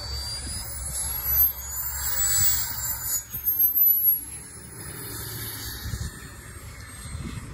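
Turbine of a BVM 1/5-scale F-16 model jet whining as the jet touches down and rolls out on grass. The high whine rises in pitch, then falls away, and the sound drops off after about five seconds as the jet slows.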